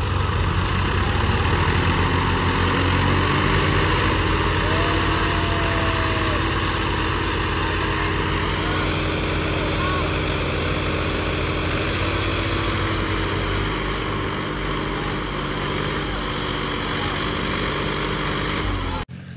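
Tractor diesel engine running under load, its pitch rising about two to three seconds in and then holding steady, as the Swaraj 963 FE sits with its wheels sunk in mud. It cuts off abruptly near the end.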